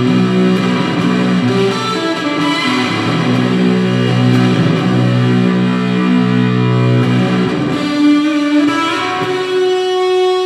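Electric guitar played through a fuzz pedal into an Orange Crush 35RT solid-state practice amp: slow, sustained chords that change every second or two, ending on a single held note.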